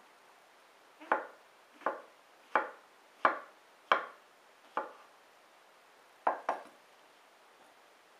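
Santoku kitchen knife slicing button mushrooms on a wooden cutting board: about eight sharp knocks of the blade hitting the wood, mostly evenly spaced, then a short pause and two quick knocks close together.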